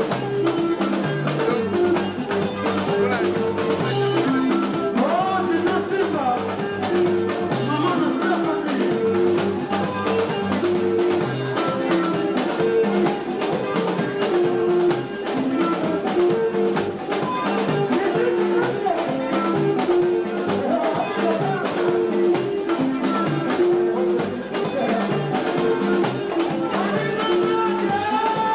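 Live Congolese rumba band playing a dance groove: electric bass, keyboard, guitar and drum kit over a steady beat, with singing at times.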